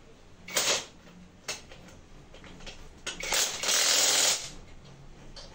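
Hands and tools working on an engine: a brief scrape about half a second in, a sharp click, then a louder scraping noise lasting just over a second near the middle.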